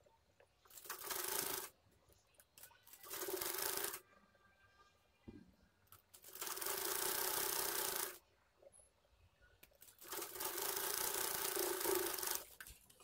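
Sewing machine stitching a seam through blouse fabric, running in four bursts with pauses between: two short runs of about a second, then two longer runs of about two seconds each.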